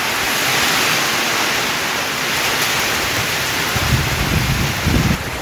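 Heavy rain pouring down in a strong wind, a steady hiss. About four seconds in, low rumbling gusts of wind buffet the microphone.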